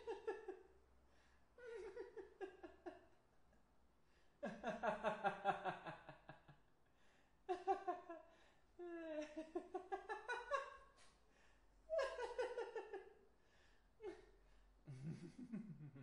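A man laughing in a series of about six separate bouts with short pauses between, some brief chuckles and some longer laughs, the longest running a few seconds.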